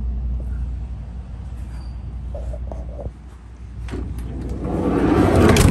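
Door of a 1971 VW Type 2 bus being worked by hand: a few handle clicks, then a rising rush as the door swings, ending in a solid shut near the end, over a steady low rumble.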